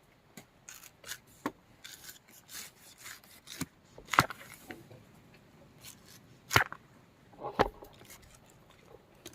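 Scattered light clicks and knocks, with three louder sharp knocks about four, six and a half and seven and a half seconds in.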